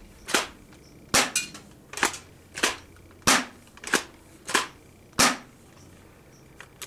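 Airsoft shotgun fired about eight times in quick succession, sharp cracks well under a second apart, stopping about five seconds in; a few faint clicks follow near the end.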